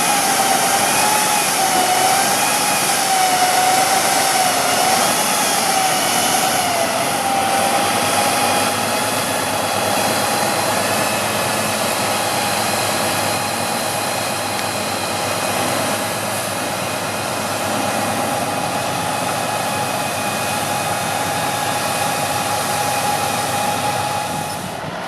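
Heavy off-road truck's diesel engine working under load, with a high whine that wavers up and down in pitch for the first several seconds, then holds steady.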